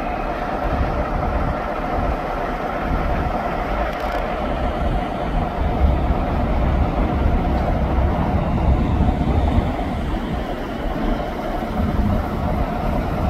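Class 47 diesel locomotive's Sulzer twelve-cylinder engine running steadily: a low rumble with a steady tone over it.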